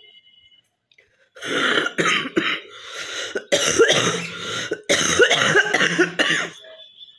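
A woman coughing hard and clearing her throat in three rough fits, a chesty cough working up phlegm that she says has built up for a long time.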